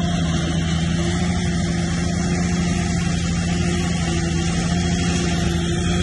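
Bulldozer's diesel engine running steadily at an even pitch.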